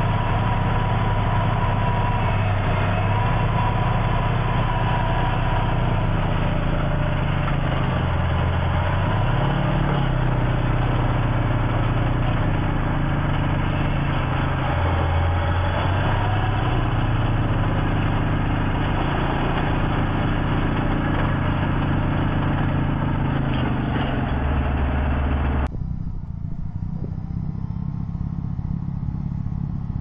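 Truck engine driving a front-mounted rotary snow blower, running steadily with its pitch stepping up and down several times as the blower works into a snow bank. Near the end the sound cuts abruptly to a quieter, thinner engine sound from another snow blower truck.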